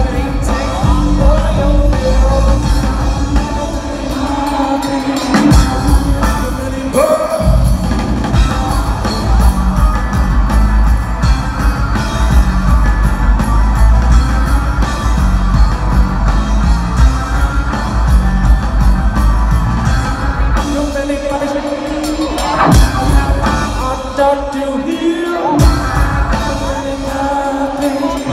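A live rock band playing loud, with heavy electric bass, drums and vocals. The deep low end drops away briefly twice.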